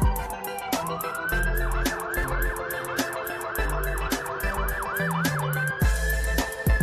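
Police-style siren in a hip hop backing track: a wail falls in pitch, then rises, then turns into a fast yelp of about three to four sweeps a second, ending on a held high tone. A beat with a heavy kick drum and ticking hi-hats runs underneath.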